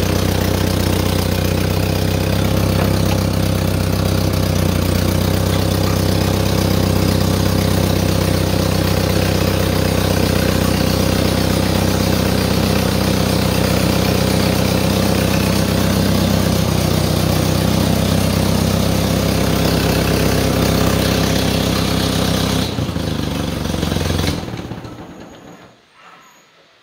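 1955 Massey Ferguson TO-35's four-cylinder gas engine idling steadily, run to circulate freshly changed transmission oil through the transmission and hydraulics. Near the end it is shut off and runs down to a stop.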